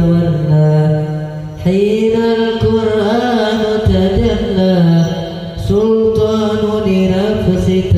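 Hadroh: male voices chanting a sholawat in long held phrases over rebana frame drums. The singing breaks briefly about a second and a half in and again near six seconds.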